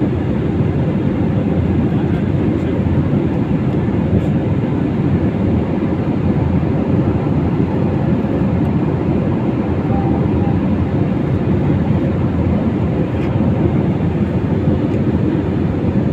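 Steady, loud low rumble of a passenger airliner's cabin in flight: jet engine and airflow noise heard from inside the cabin.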